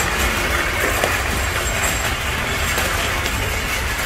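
Wire shopping cart pushed at a run, its wheels and metal basket rattling steadily over a hard store floor.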